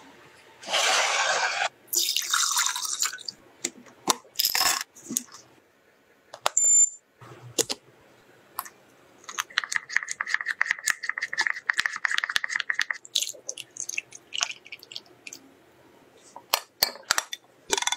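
A run of close-up kitchen handling sounds: clinks and knocks of glassware and a lid, with a few short noisy stretches. About ten seconds in, a steady high tone with fast ticking runs for a few seconds.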